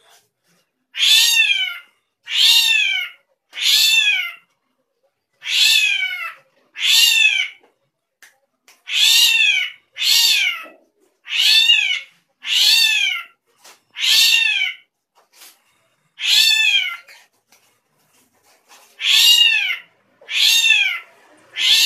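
Drongo calling over and over, about one call a second with a couple of short pauses. Each call is a short cry that rises and then falls, sounding like a cat's meow: the strange voice of this bird.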